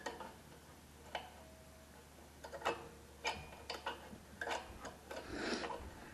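Light metal clicks and taps from a lawnmower engine's automatic choke plate and lever being worked by hand, a handful of separate clicks spread out, then a short scuffing rub near the end.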